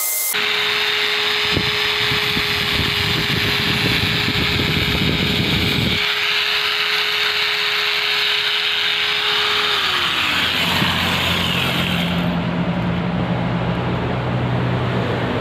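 Electric angle grinder running with a steady whine, its pitch sliding down as it winds down about ten seconds in. A low steady hum follows near the end.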